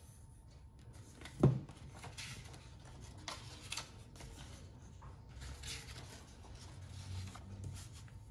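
Paper pages of an activity book being turned by hand: several short rustling swishes. One thump about a second and a half in is the loudest sound.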